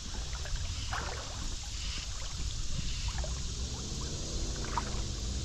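River current rippling and lapping close by, over a steady low rumble, with a few faint ticks.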